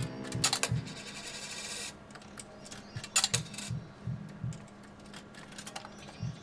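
Casino ambience without voices: an electronic jingle from the machines fades out just after the start, then sharp clicks and clatters and about a second of rattling, over a low thumping pulse at about three beats a second that comes and goes, and a steady hum.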